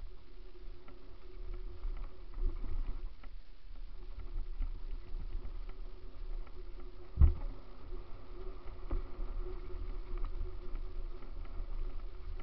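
Mountain bike rolling fast down a dirt trail: a steady rumble and rattle of tyres and frame over gravel and roots, picked up by a mounted camera. A single hard knock about seven seconds in, the loudest moment.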